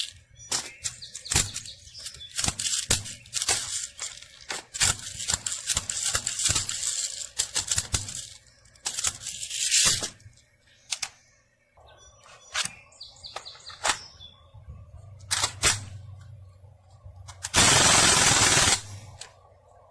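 Crosman DPMS SBR CO2-powered BB gun firing: rapid, irregular strings of sharp pops for the first ten seconds or so, then a few single shots. Near the end comes a loud rush of noise lasting about a second.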